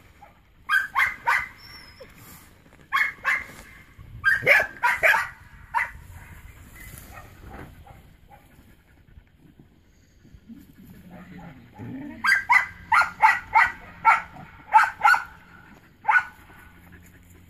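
Border collie sheepdog barking in short, sharp yips in bunches: a few about a second in, more around four to five seconds, and a fast run of about nine barks near the end, excited by the pigs rooting nearby.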